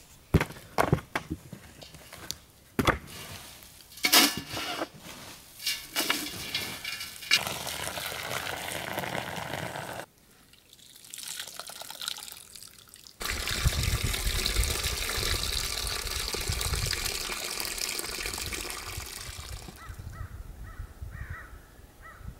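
Hatchet chopping pieces of bark against a wooden chopping block, sharp separate chops about once a second, for the first several seconds. After a short lull, dark liquor streams and splashes into a steel pot as cooked bark chips are squeezed out by hand, a steady pouring sound lasting several seconds.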